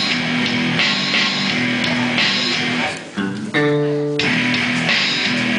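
A young rock band playing live: electric guitar, bass guitar and electronic drum kit. There is a short break about three seconds in, then a held chord.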